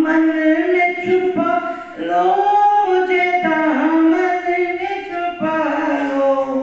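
A woman singing unaccompanied, one long melodic phrase of drawn-out held notes with a brief breath about two seconds in, typical of a devotional naat recitation.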